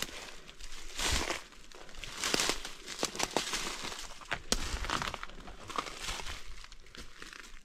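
Close rustling and crackling from a person moving, in irregular swishes about a second apart with many sharp snaps, dying down at the end.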